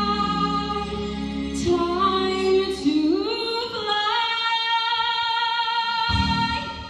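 Female solo voice singing through a microphone, holding long notes that climb step by step to a sustained high note about halfway through, over lower chords that drop out in the middle and return near the end.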